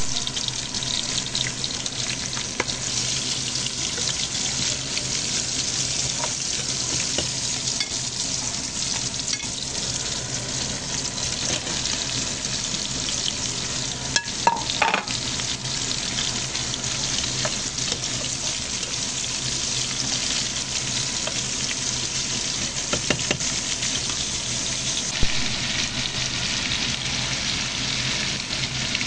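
Pork cubes frying in a pot, a steady sizzle, with a few scattered clinks and knocks of a utensil against the pot.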